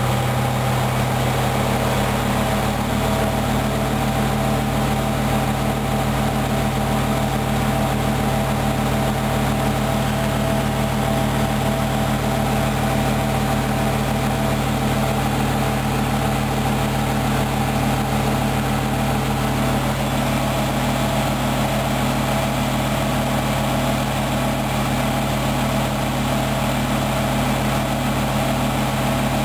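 Hoover Dynamic Wash front-loading washing machine running a steady high-speed spin, its motor and drum giving an even hum and whine that holds at one speed. This is the final spin of the wash programme.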